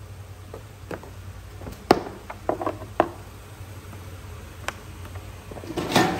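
A car headlight's plastic lens clips being pried up with a screwdriver: a series of sharp clicks and snaps as the clips let go. The loudest snap comes about two seconds in, and a denser cluster of cracks comes near the end.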